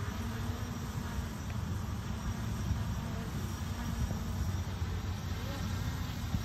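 Small quadcopter drone's propellers buzzing, the hum shifting slightly in pitch as the motors adjust, over a low rumble.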